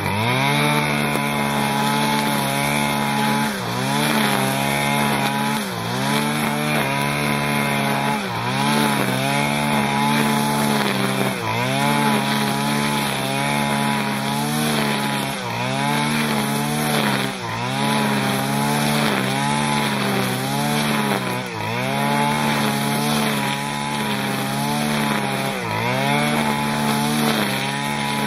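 Dolmar MS-4510 brush cutter's 45 cc two-stroke engine running at high revs while its three-blade knife cuts grass. The engine note dips briefly and recovers about every two seconds as the blade takes load on each swing.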